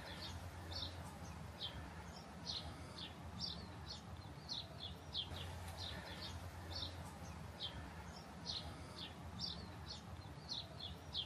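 Faint birdsong: short, high chirps repeating about twice a second over a low, steady background hum.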